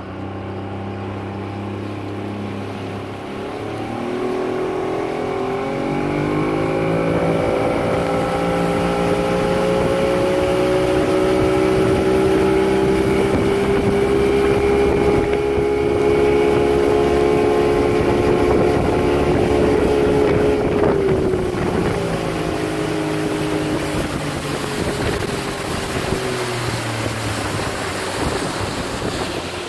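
65 hp outboard motor pushing a 16-foot aluminum ski barge, with wind and water rushing past. The engine note climbs about four seconds in as the boat gets up to speed, holds steady at cruising speed, then drops a little past twenty seconds as it slows.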